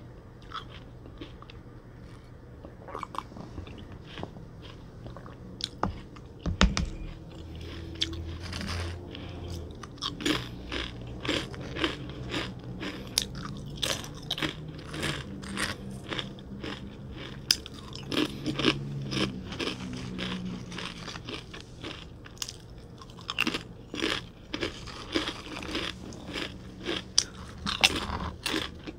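Close-miked eating of crisp food: sharp crunches and chewing, several crunches a second from about ten seconds in. There is a single loud knock about six seconds in.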